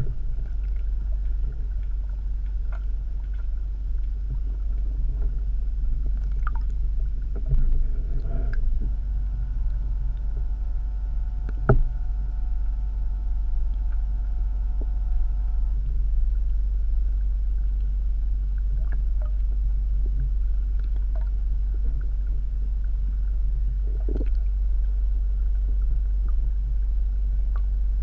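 Underwater ambience picked up by a submerged camera: a steady, muffled low rumble with scattered clicks and knocks, the sharpest about twelve seconds in. A faint steady hum of several tones comes in about nine seconds in and stops about seven seconds later.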